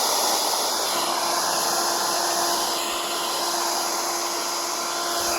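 Steady radio static: an even, loud hiss with a few faint steady tones running through it.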